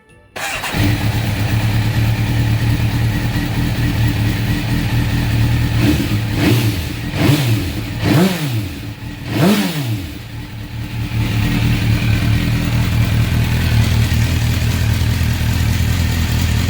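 MV Agusta Brutale 750S motorcycle's inline four-cylinder engine idling, blipped four times in quick succession about six to ten seconds in, each rev rising and falling back before it settles to a steady idle.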